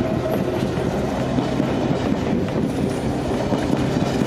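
Passenger coaches of a locomotive-hauled BLS train rolling past close by, the wheels clattering on the rails over a steady low rumble.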